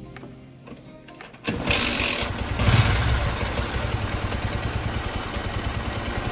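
Bajaj Pulsar 150 single-cylinder engine starting about a second and a half in, then running with a fast, even pulse and a loud noise like a rubbing timing chain. The noise comes from the stator, which has come loose because its bolts backed out.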